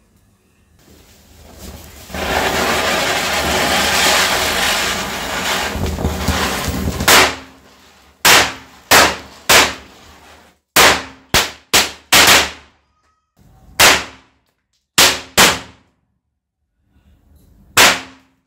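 Diwali firecrackers going off: about a dozen sharp bangs at irregular intervals, some in quick pairs and triples. They follow several seconds of loud fizzing hiss as the matchstick chain flares toward them.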